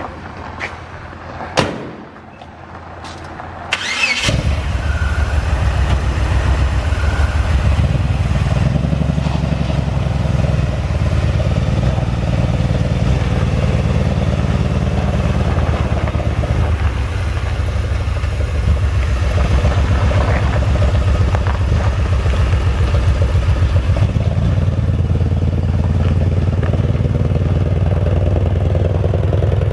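A few clicks and a thump, then the 1990 Chevrolet S10's 4.3-litre six-cylinder gas engine is cranked and starts about four seconds in. It settles into a steady idle with an even, low exhaust pulse.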